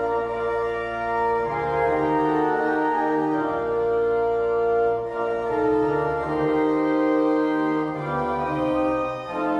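Church organ playing slow, sustained chords over a moving bass line.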